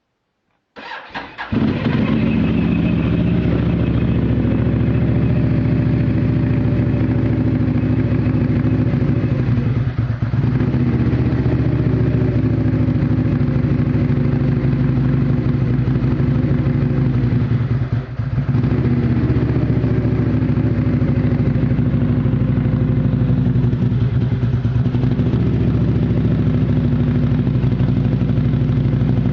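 Outlander's engine starting from cold: it catches after a brief crank about a second in and settles into a steady idle that the owner calls rough. Its running dips briefly twice, about a third and about two-thirds of the way through.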